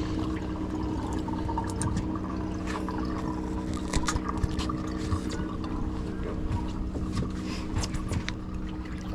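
Steady hum of a boat's machinery running at a constant pitch, with water noise and scattered light clicks and knocks on board.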